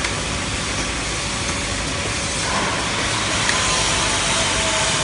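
Automatic bottle-capping line running: the conveyor and star-wheel screw capper make a steady mechanical hum and hiss. It grows a little louder about two and a half seconds in, with a faint steady whine.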